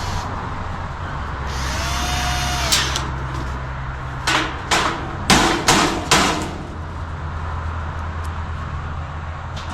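Sharp metallic clanks, about five in two seconds near the middle, as galvanized steel nesting-box parts are handled and fitted together, over a low steady hum.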